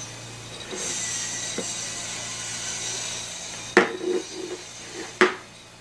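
A handheld mini oscilloscope handled and set down on a tabletop: two sharp plastic knocks about a second and a half apart, after a steady faint hiss.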